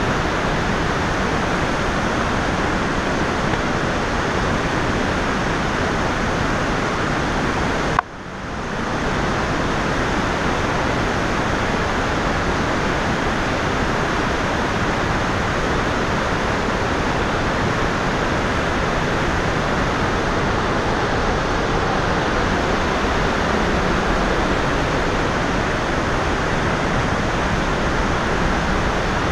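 Whitewater river rushing steadily, a dense even hiss of falling and churning water. The sound drops out sharply about eight seconds in and swells back within a second.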